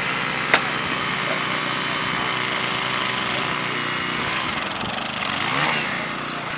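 Small petrol engine of trackside rail equipment running steadily, its pitch wavering about five seconds in. A single sharp metal clink about half a second in, as a steel bar strikes the rail.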